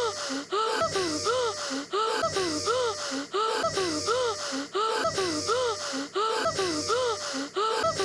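Two cartoon boys' voices gasping and wheezing for air, one short clip looped over and over about every second and a half, each gasp rising and then falling in pitch.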